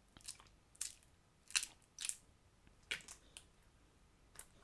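Sticky homemade slime being kneaded and pulled apart by hand, giving about six short, sticky pops and squelches spread over a few seconds.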